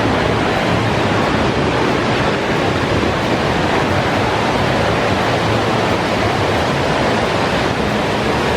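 Steady noise of falling water from a waterfall, loud and unbroken.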